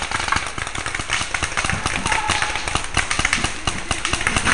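Paintball markers popping in rapid, irregular volleys, mixed with the crunch and rustle of dry leaf litter underfoot.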